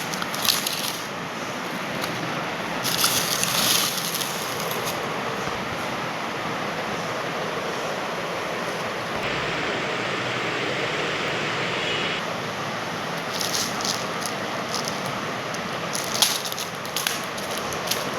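Packaging being handled, crinkling and rustling in short bouts, over a steady hiss.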